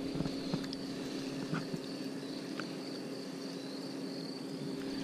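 Quiet lake ambience from a boat: a steady low hum with a faint, constant high insect chirring and a few light clicks of fishing tackle being handled.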